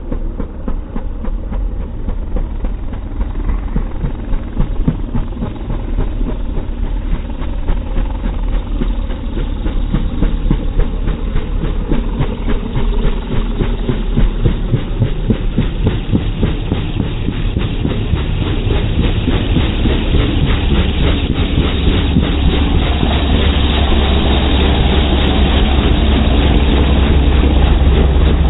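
Light helicopter's rotor beating in a fast, steady chop, growing louder through the second half as it flies in low and close overhead.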